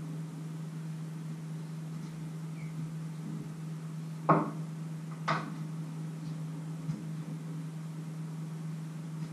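Steady low hum with two sharp knocks about a second apart near the middle and a faint tick a little later, from kitchen things being handled at a wooden cutting board.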